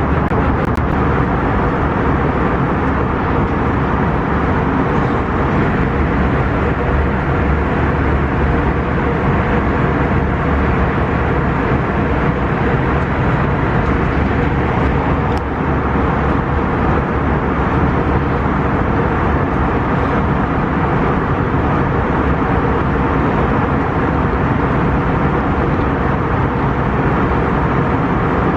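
Steady, loud rumbling noise, heaviest in the low end, with no breaks.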